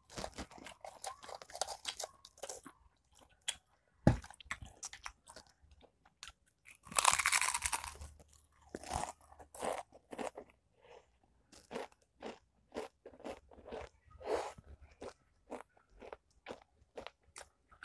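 Mister Potato ghost pepper potato crisps being bitten and chewed close to the microphone: many short, dry crunches in an irregular run, the longest and loudest crunch about seven seconds in.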